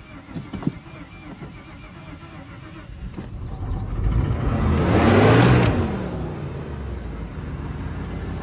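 A Ford 351 V8 in a 90s Ford truck cranking and catching about four seconds in, revving up and then dropping back to a steady idle: a junkyard engine that has sat for years starting up. A few light clicks come before it.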